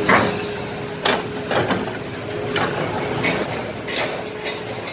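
Excavator working on broken concrete: a steady machine whine runs under several sharp knocks, and high metallic squeals come in during the second half.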